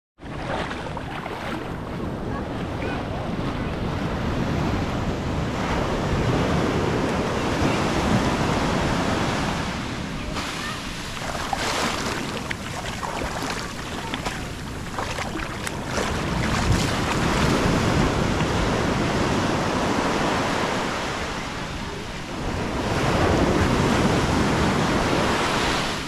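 Small Atlantic waves washing up the beach at the water's edge, a steady rush of surf over the sand that swells and eases in surges every few seconds.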